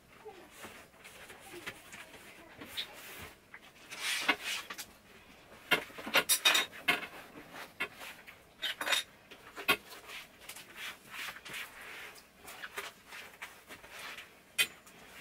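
Metal kitchen utensils clinking and clattering as they are handled, in irregular bursts, the loudest about six to seven seconds in and again about nine seconds in.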